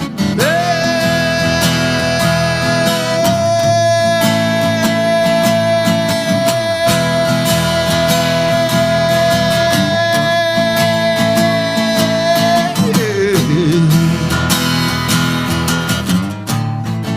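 Instrumental break of a country-style song played live by a band with guitar. A lead instrument holds one long note for about twelve seconds, then bends and wavers in pitch.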